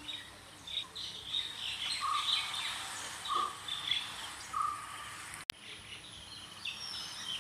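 Birds chirping and calling, including a short note repeated three times about a second apart among higher twittering. A single sharp click a little past the middle.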